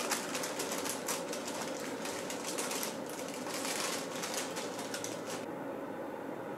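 Silicone-coated baking paper crinkling and crackling in fast irregular rustles as it is peeled away from a set sheet of tempered chocolate. It stops about five and a half seconds in.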